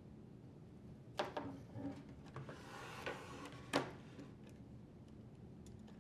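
Dishwasher upper rack and spray arm assembly being handled and positioned: a few light clicks and knocks about a second in and again near four seconds, with a brief scraping rustle between them.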